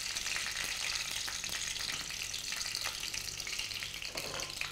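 Whole spices (bay leaf, cinnamon stick, star anise, cloves and cardamom) sizzling in hot cooking oil in an aluminium pot, a steady crackling hiss.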